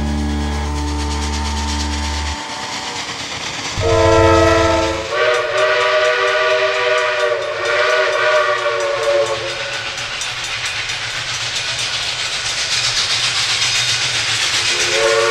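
A steam locomotive's chime whistle sounds a short blast and then a long, wavering one of several tones together. A steady hiss follows as the train approaches the grade crossing, and the whistle starts again near the end. The closing chord of a music track is heard in the first couple of seconds.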